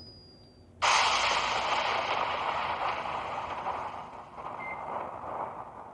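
A loud rushing hiss played back as a sound effect starts abruptly about a second in and slowly fades.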